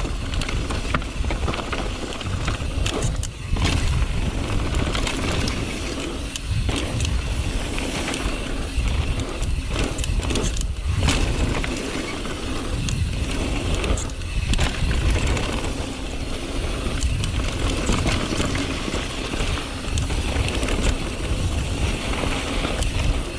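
Mountain bike, a YT Tues, running down a rough bike-park trail: tyres rolling over dirt and rocks, with the chain and frame clacking and rattling over bumps, and wind rumbling on the microphone.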